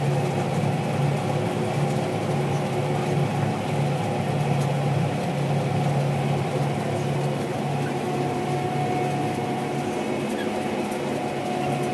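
Combine harvester running steadily while threshing wheat, heard from inside the cab: a constant engine and machinery drone with a strong low hum and a few steady higher tones.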